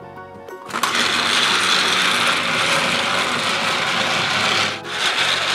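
Paw Patrol Adventure Bay Railway motorized toy train running along its plastic track: its motor and gears make a steady mechanical noise that starts about a second in, dipping briefly near the end.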